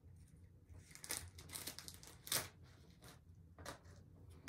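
Plastic poly mailer crinkling as it is handled and slit open with a small knife: a few short, soft rustles and scrapes, the loudest a little past halfway.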